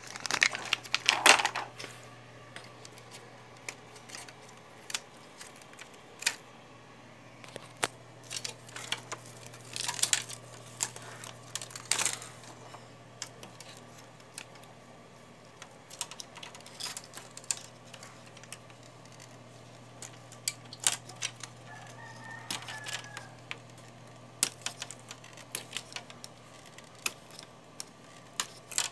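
Irregular plastic clicks, taps and knocks from hands working on an Epson L1300 inkjet printer's ink tube bundle and damper assembly, over a steady low hum. The loudest cluster comes about a second in, with further sharp clicks around ten and twelve seconds.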